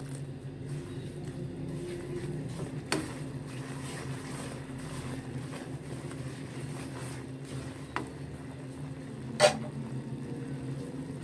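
Hot sugar syrup poured into roasted semolina in a pan, sizzling and bubbling as a spatula stirs it. The spatula knocks on the pan three times, the loudest near the end, over a steady low hum.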